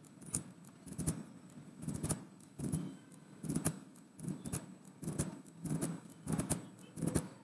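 Computer keyboard keys tapped in short irregular runs, with mouse clicks between them, as numbers are typed into one box after another.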